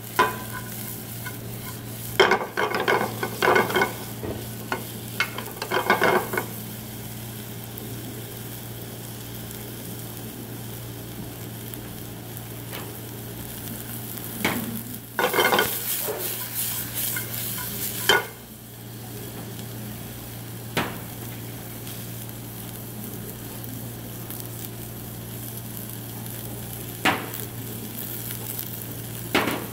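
Sliced onion and Korean green onion sizzling in oil in a frying pan, stirred with a metal spoon that scrapes and clatters against the pan in bursts a couple of seconds in and again around the middle, with a few single clinks later.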